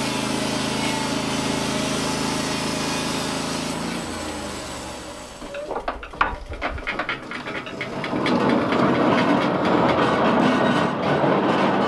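Norwood LumberMate LM29 portable band sawmill running, its engine humming steadily as the band blade cuts through a log. About four seconds in, the engine drops in pitch and winds down. A few sharp knocks follow, then a loud, rough noise fills the last few seconds.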